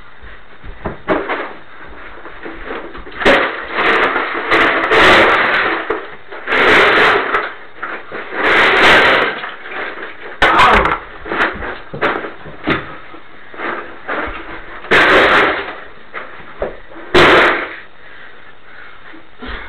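Repeated bangs, thumps and crashes from two people wrestling, coming in irregular bursts of about a second each, with the loudest near the middle and about three-quarters of the way through.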